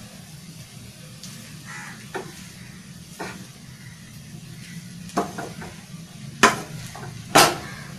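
Spatula scraping and knocking against a frying pan while stirring egg fried rice, with a faint sizzle and a low steady hum underneath. Two sharper knocks near the end are the loudest.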